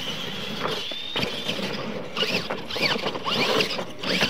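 Electric motors and gears of Clodbuster-type RC monster trucks whining while racing, the pitch rising and falling again and again with the throttle.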